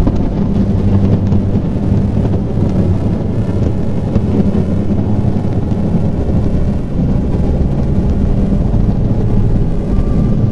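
Electronic drone music from a VCV Rack software modular synthesizer: a dense, rumbling low drone with held low notes, and a higher steady tone coming in near the end.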